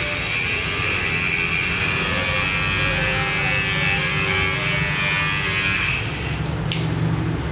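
Handheld electric body massager buzzing steadily as it is worked over a person's back, cutting out about six seconds in, followed by a couple of sharp clicks.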